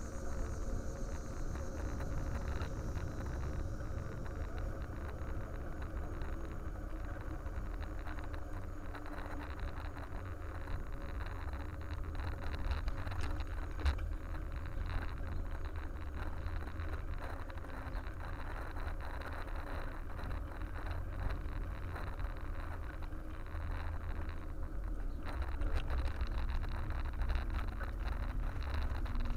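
Steady low rumble of wind on the microphone and rolling vibration from a camera riding along pavement, with a faint steady whine.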